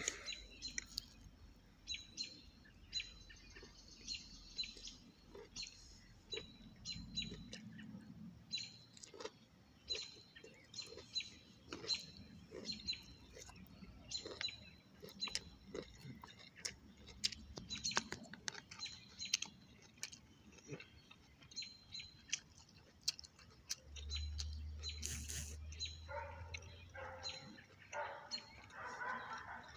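Small birds chirping over and over, with sharp close clicks and smacks of chewing food throughout. A lower pitched sound comes in near the end.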